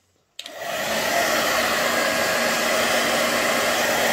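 Handheld hair dryer switched on about half a second in, then blowing steadily: a loud rush of air with a faint steady hum underneath. It is heating the printer's top panel to soften the glue holding the LCD screen.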